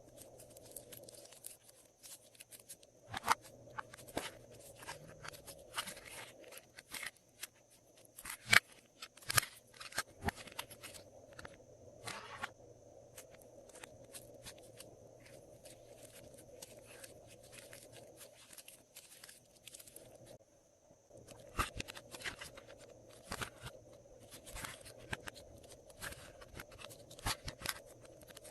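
Glossy slime being squeezed and mixed by hand, making irregular sticky clicks, pops and crackles, with a quieter stretch in the middle.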